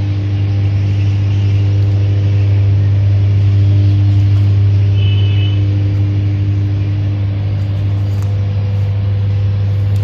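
A loud, steady low machine hum with an even pitch that does not change. A brief high chirp sounds about five seconds in.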